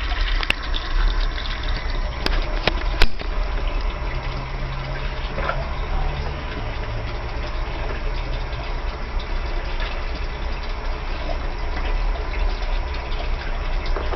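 Brastemp washing machine filling with water for a rinse cycle: a steady rush of water into the drum over a low hum, with a few sharp clicks in the first three seconds.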